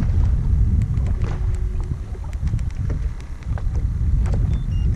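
Wind buffeting the microphone, an uneven low rumble, with scattered small clicks and knocks.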